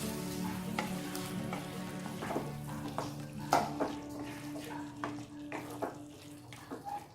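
Spoon stirring chicken gravy in a pan, with sharp clinks and scrapes against the pan about once or twice a second over a sizzle, thinning out near the end. Background music plays underneath.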